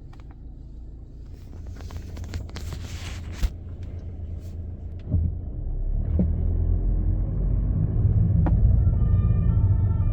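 Audi A6 C7 2.0 TDI four-cylinder diesel car on the move: a low rumble that grows louder after about five seconds, with a few sharp clicks along the way, the driving noise the owner is questioning. Near the end a few steady high tones come in.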